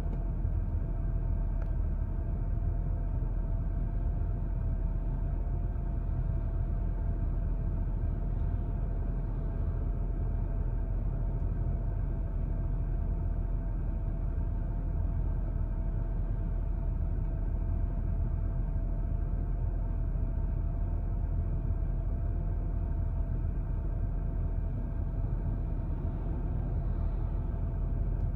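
BMW N52 3.0-litre inline-six idling steadily at about 800 rpm, heard from inside the cabin as a low rumble. The engine carries a 3-stage intake manifold and AA headers, and the owner hears its idle as an uneven 'circulating' rather than the stock purr. It is apparently the engine computer, confused by the O2 sensor readings with the catalytic converter gone, hunting for the right mixture.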